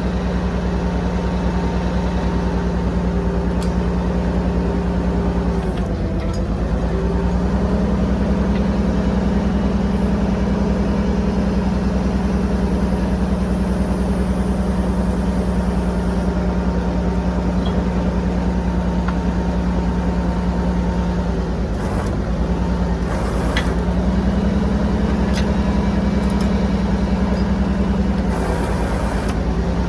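An engine running steadily, its pitch dipping briefly and coming back up a few times, with a few faint clicks over it.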